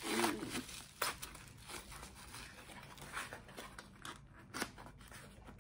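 Bubble wrap crinkling and rustling as it is pulled off a small cardboard package, then the cardboard being handled and torn open, with a few sharp crackles.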